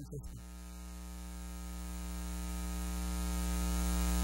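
Electrical mains hum from the church sound system, a steady buzz with many overtones, growing steadily louder through the pause.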